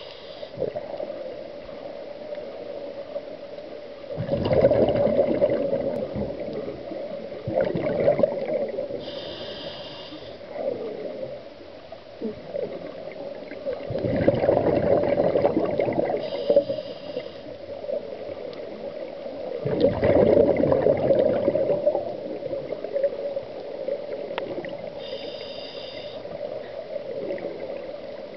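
Scuba diver breathing through a regulator underwater. Exhaled bubbles rush out loudly every five or six seconds, with a short high hiss of inhalation through the regulator between them, over a steady hum.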